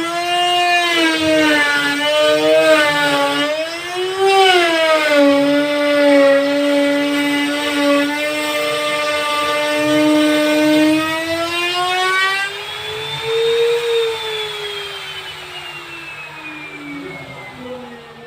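Electric wood router running with a high whine that wavers up and down in pitch. About thirteen seconds in it winds down, the whine falling steadily in pitch.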